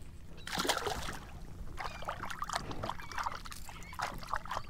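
Water splashing and trickling as a speckled trout is released by hand over the side of a kayak, with the loudest splash about half a second in.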